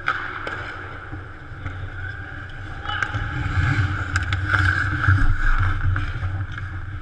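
Ice hockey play close to the net: skates scraping the ice and sharp clacks of sticks and puck, over a low rumble that builds from about three seconds in and is loudest around five seconds as players crowd the goal.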